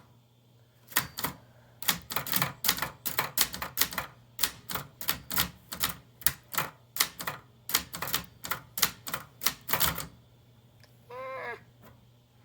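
Brother Charger 11 manual portable typewriter being typed on: a quick, uneven run of key strikes, about three or four a second, that stops about ten seconds in.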